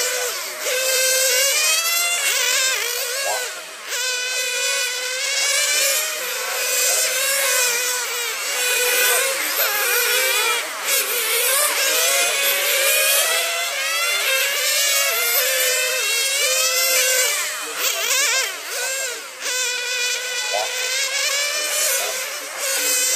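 Several radio-controlled model racing cars running on the track, their high-pitched motors overlapping and repeatedly rising and falling in pitch as the cars accelerate and slow through the corners.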